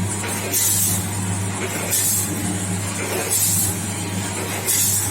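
Model 905 granule-filling and bagging machine running: a steady motor hum, with a short hissing clatter repeating about every second and a half as it works through its bag cycle.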